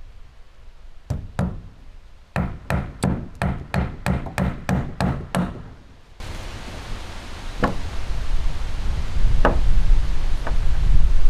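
Repeated sharp knocks, like blows on wood: two about a second in, then a run of about ten at roughly three a second. After about six seconds they give way to a low, rising rumble of wind buffeting the microphone, with a few faint clicks.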